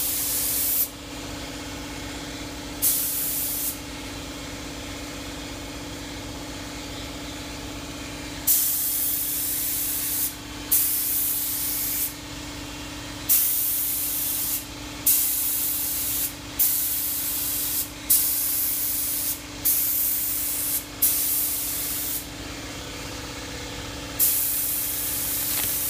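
Air spray gun hissing as it sprays paint in repeated bursts of one to two seconds, each opening with a sharp puff as the trigger is pulled, with a long pause a few seconds in. A steady low hum runs underneath.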